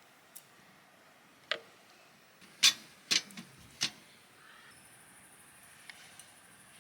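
A handful of sharp clicks and knocks at uneven intervals, the loudest a little over two and a half seconds in, with a quick double knock just after it. A faint high hiss sets in about halfway through.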